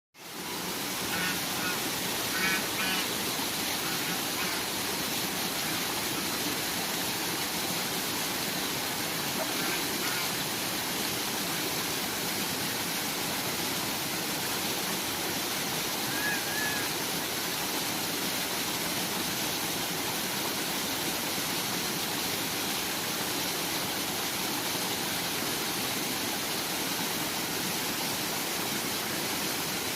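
Steady rush of flowing water, with a few short, high calls scattered through it: a cluster in the first few seconds, one around ten seconds and one around sixteen seconds.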